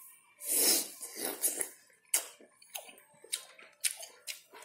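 A person eating a mouthful of lemon with petis sauce: a sharp breathy burst about half a second in, then chewing with a string of short wet mouth clicks about every half second.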